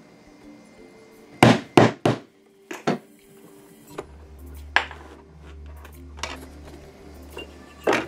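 Background music with a steady melody, over a few sharp knocks and taps from hand tools working leather on a cutting mat: three loud knocks in quick succession about a second and a half in, then scattered single taps. A low drone comes in about four seconds in.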